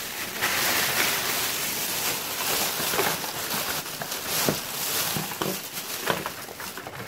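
Thin plastic shopping bag crinkling and rustling as it is shaken out, with lip balm tubes and cardboard blister packs clattering onto a stone countertop in several sharp clicks over the second half.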